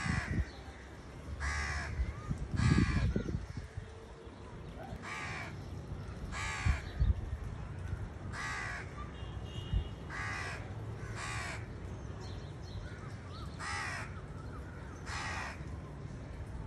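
Hooded crows cawing: about ten single harsh caws, one every second or two, with a low rumble about three seconds in.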